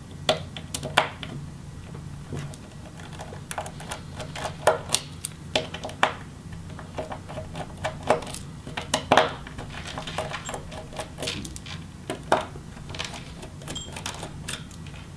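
Irregular small clicks and taps of a Phillips screwdriver backing screws out of a laptop display hinge, with light knocks of the metal hinge against the plastic back cover.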